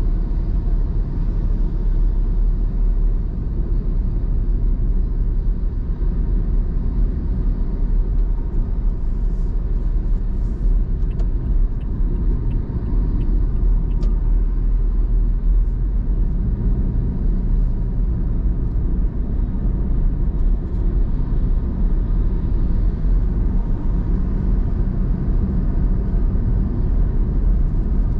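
Steady low rumble of a car cruising on an expressway: road, tyre and engine noise heard from inside the cabin.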